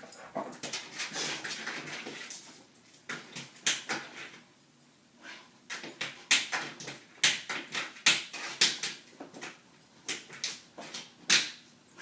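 A dog rummaging: rustling at first, then a string of sharp knocks and clatters.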